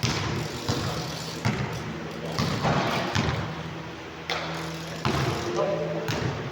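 A basketball bouncing on a court, a sharp knock about once a second at an uneven pace, over a steady low hum.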